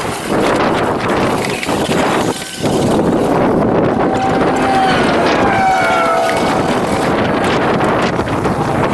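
Wind buffeting the microphone, a loud, steady rushing noise with low rumble. A few faint thin whistling tones come through about halfway through.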